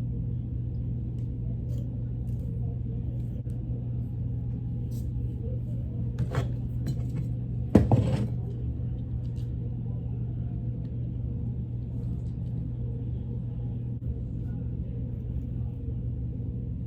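A steady low hum with two short knocks or rustles of handling, about six and eight seconds in, the second the louder.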